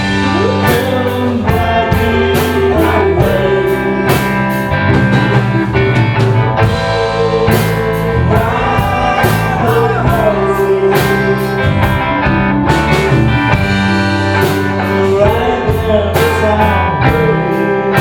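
A live rock band playing: a singer over electric guitar, bass and drums, with steady low bass notes and frequent cymbal and drum hits.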